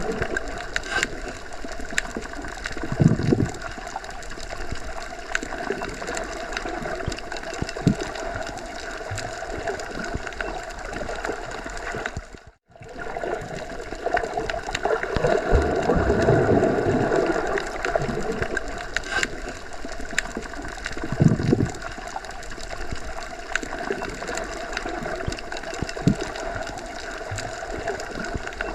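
Underwater ambience: a steady muffled rush of water with low gurgling surges and faint clicks, broken by a brief dropout about halfway through.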